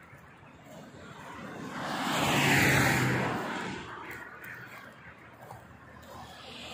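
A vehicle passing close by at motorway speed: tyre and engine noise swells to a peak about two and a half seconds in and fades, its pitch falling as it goes past. A second vehicle starts to approach near the end.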